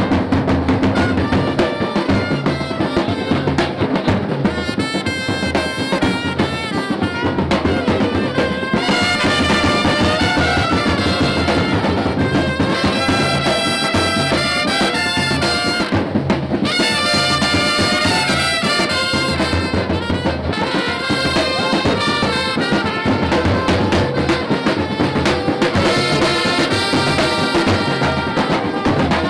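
Supporters' brass band playing: several trumpets sound a repeating melody in phrases over a steady bass-drum beat.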